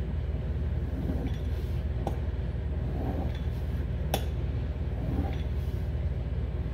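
Metal pizza-cutter wheel rolled through a sheet of puff pastry dough on a hard countertop, with a few sharp clicks, the clearest about two and four seconds in, over a steady low hum.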